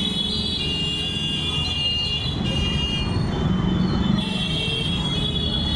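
Road traffic: vehicle engines running as a steady low rumble, with a steady high-pitched whine over it.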